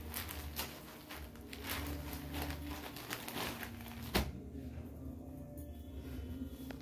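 Cotton saree cloth rustling as it is handled and folded, with a dull thump about four seconds in as the folded saree is set down on a sheet-covered table.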